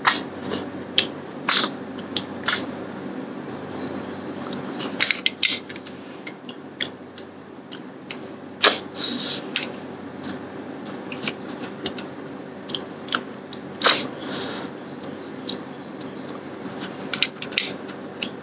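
Close-up mouth sounds of eating snail curry and rice by hand: irregular wet smacks, chewing clicks and a couple of short hissing sucks, over a faint steady hum.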